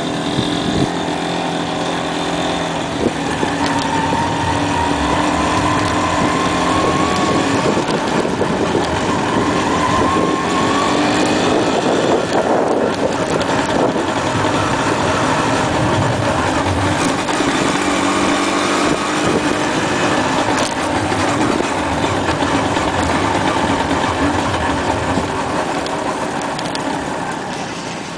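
Motorcycle engine running as the bike rides along a sandy track, its pitch climbing slowly for several seconds and then rising and falling with the throttle; it eases off near the end.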